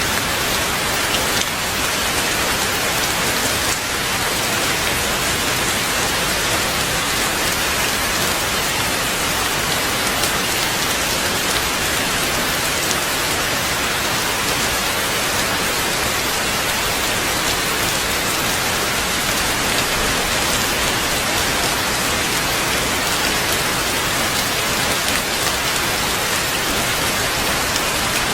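Heavy rain falling steadily, an even, unbroken hiss of countless drops.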